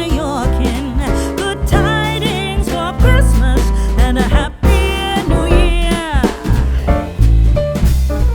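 Background music: a song with a wavering sung melody over bass and drums.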